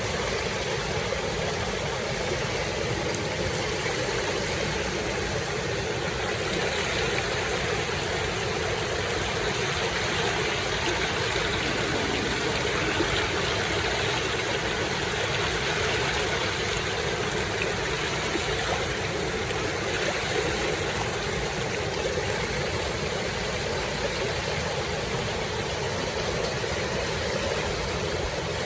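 Waterfall, water rushing in a steady, unbroken roar.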